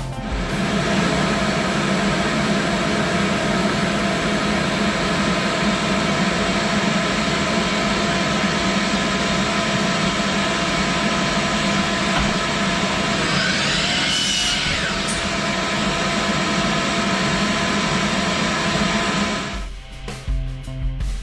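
An electric power tool's motor running steadily for about twenty seconds, with a brief wavering change in pitch near the middle, then shutting off.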